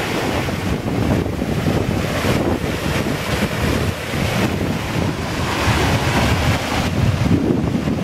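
Water rushing over a small waterfall, heard close up as a steady, loud noise, with wind buffeting the microphone.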